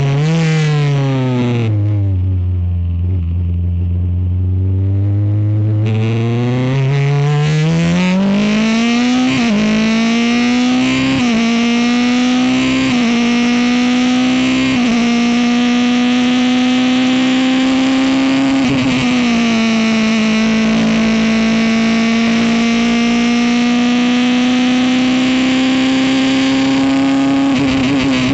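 Honda engine of a Ligier race car on a flying qualifying lap. The revs fall off and stay low for a few seconds, then climb hard through a quick series of upshifts, each a short drop in pitch. The engine holds high revs for a long stretch and falls away again near the end.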